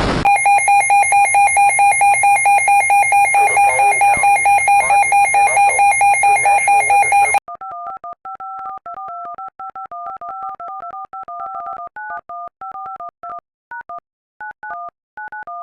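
Loud electronic alert tone pulsing rapidly, about four beeps a second, which cuts off suddenly about seven seconds in. A run of quieter touch-tone (DTMF) beeps follows, each a pair of tones, changing pitch from beep to beep.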